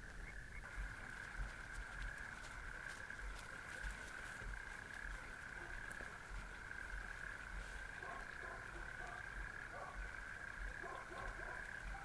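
A chorus of frogs calling at night: a steady, unbroken high-pitched calling throughout, with short lower croaks joining in from about eight seconds in.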